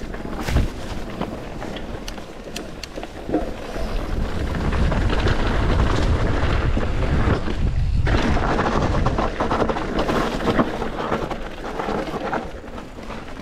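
Mountain bike riding down a dirt downhill trail: wind rumbling on the microphone, tyres on dirt and rock, and many sharp rattles and knocks from the bike over bumps.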